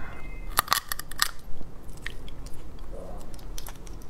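Close-miked eating sounds: biting and chewing cooked sea snail meat, with wet clicks and smacks. A cluster of sharp clicks comes about half a second to a second and a half in, then fainter scattered clicks.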